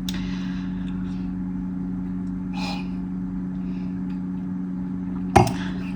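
A steady low hum of two tones, like an appliance running, with a faint rustle about halfway through and a single sharp knock near the end.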